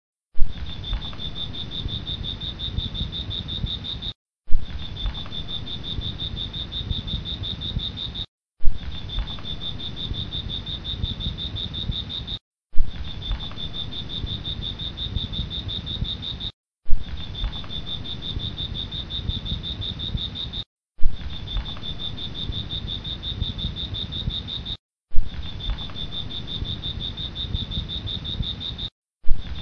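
A looped background recording of insects chirring in a steady high trill. The loop restarts about every four seconds after a brief silent gap, and each restart opens with a sharp click.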